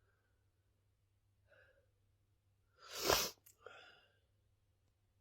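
A person sneezing once, sharply, about three seconds in, after a short breath in; a brief breathy sound follows the sneeze.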